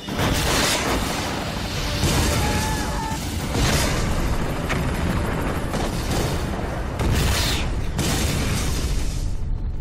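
Film explosion sound effect: a huge fireball going up in a long, deep, rumbling blast, with fresh surges about two, four and seven seconds in.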